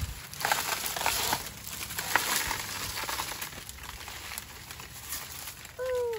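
Dry, dead banana leaves crackling and rustling as a cut bunch of bananas is handled among them. A short call that falls in pitch comes near the end.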